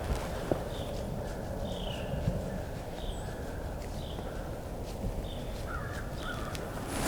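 Birds calling outdoors: short, faint chirps, some dropping slightly in pitch, about once a second, over a steady low background rumble.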